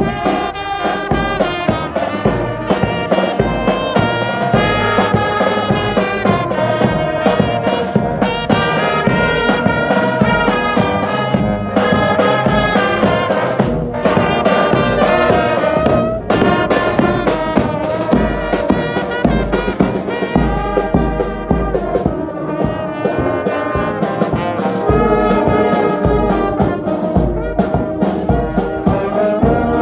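Marching brass band playing: trumpets, trombones and a tuba carrying the tune over a steady beat of bass drum and snare drum.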